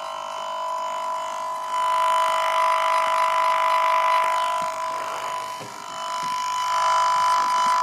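Computer running with a steady high-pitched whine made of several pitches, over a rushing hiss. The hiss grows louder about two seconds in, dips briefly a little past the middle, then rises again while the whine holds its pitch.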